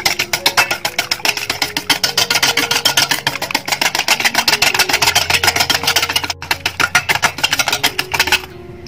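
A metal utensil clinking rapidly against a stainless steel bowl as egg is beaten, about eight strokes a second, stopping near the end.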